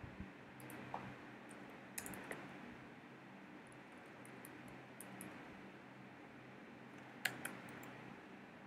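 Sparse computer keyboard keystrokes: a handful of single clicks and a quick pair, spaced a second or more apart, over a faint steady hum.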